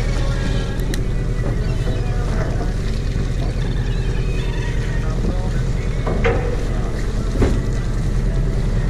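Steady low drone of a party fishing boat's engine running, with wind on the microphone.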